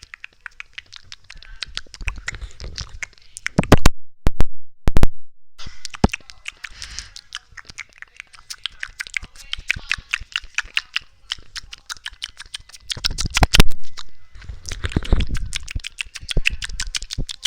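ASMR mouth sounds close to the microphone: rapid wet tongue and lip clicks and smacks, with a few louder, deeper bursts about four seconds in and again near thirteen seconds.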